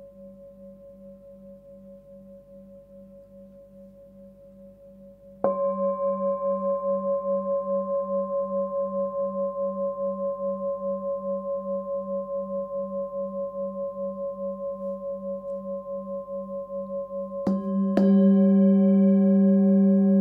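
Forged Sun Moon singing bowl, 19.8 cm, with its fundamental at 193 Hz (G), ringing with a slow, even pulse in its low tone. It is struck about five seconds in, then struck twice more in quick succession near the end, ringing louder with its higher overtones standing out.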